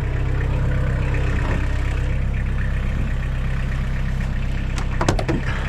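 Engine idling steadily, with a few sharp clicks about five seconds in.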